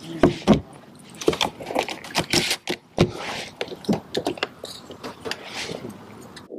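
Close handling noise: an irregular run of clicks, knocks and rustling, with a few sharper clacks about half a second in and again about three seconds in.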